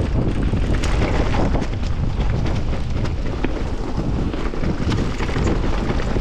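Wind rushing over the camera microphone on top of the rumble of knobby mountain-bike tyres rolling down a dirt trail, with scattered clicks and rattles from the bike, a Canyon Torque:ON electric mountain bike, as it runs over the bumps.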